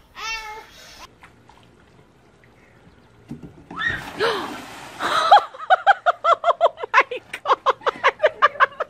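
A shout and a splash into a backyard swimming pool, followed by a person laughing hard in quick, repeated bursts, about four a second.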